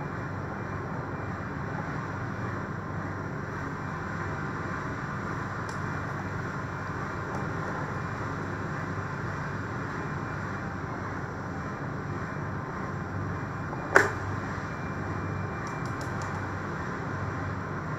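Steady background noise with one sharp knock about fourteen seconds in, from hand work with a screwdriver on a metal electrical box.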